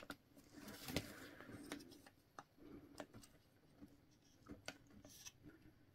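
Faint handling of a wooden cross-stitch scroll frame: scattered light clicks and taps as the fabric is rolled on the dowel and the wing screws are tightened, the loudest tap about a second in.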